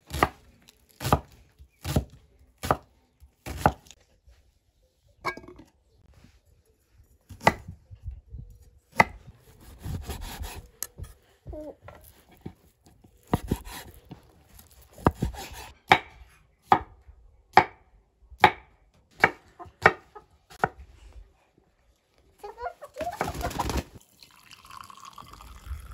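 Cleaver chopping through an onion onto a wooden cutting board, sharp knocks about one a second, then more knife strokes on the board. Near the end, tea is poured from a glass teapot into glass mugs.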